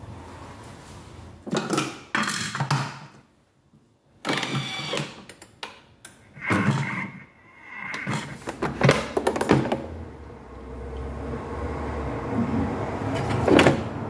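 Knocks and clatters of a bowl and the lid being handled on a Thermomix mixing bowl. About ten seconds in, the Thermomix motor starts with a steady hum that builds as its blade whips the vegan mascarpone cream.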